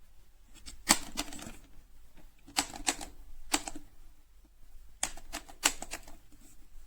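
Sharp plastic clicks and clacks in four short clusters, from handling a Master Lock 5900D portable lock box.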